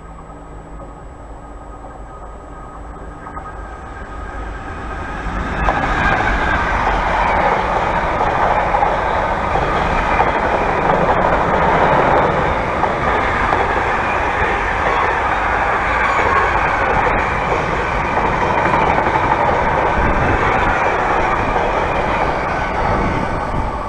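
Container freight train passing close: the locomotive is heard approaching and growing louder, arrives with a sudden jump in loudness about five seconds in, and then a long line of loaded container wagons rolls past with a steady, loud rolling noise that eases near the end.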